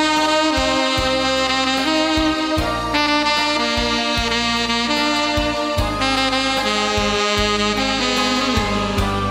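Saxophone playing a slow melody in long held notes over a backing track with a steady beat and bass.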